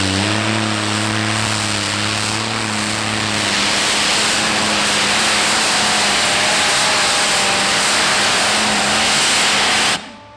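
Heavy modified pulling tractor running at full power under load during a pull: a loud, dense engine noise with a steady held note. It cuts off suddenly near the end.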